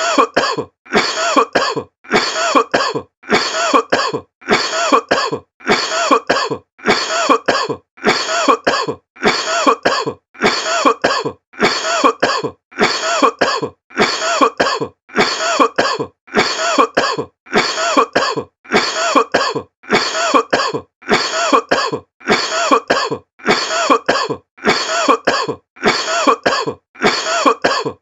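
A person coughing: short bursts of a few quick coughs each, repeating about once a second at even spacing, each burst alike.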